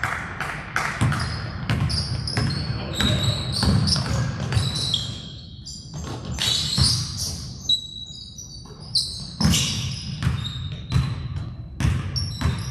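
A basketball bouncing on a gym floor during play, many sharp bounces with short high sneaker squeaks on the hardwood in between.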